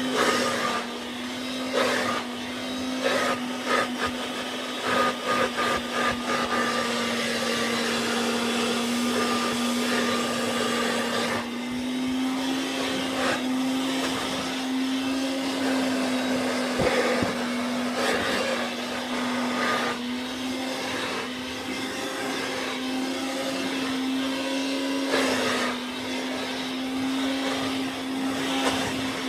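1940s Hoover Dustette handheld vacuum cleaner running quietly, its motor holding a steady hum that rises and dips slightly in pitch. A few short knocks sound over it in the first several seconds.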